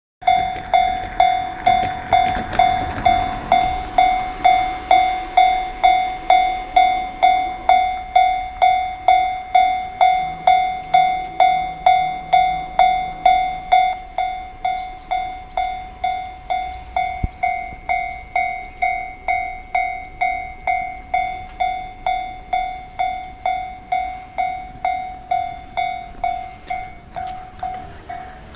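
Japanese railway level-crossing warning bell ringing steadily, about two strikes a second, with a rushing train noise in the first few seconds. The bell becomes noticeably quieter about halfway through.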